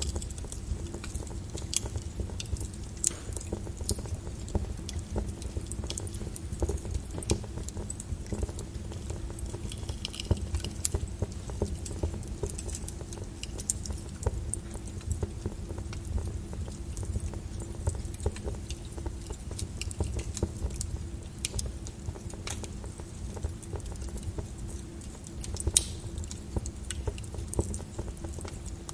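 Rain pattering together with a wood fire crackling: a steady low rumble under scattered sharp crackles and pops, one louder pop near the end.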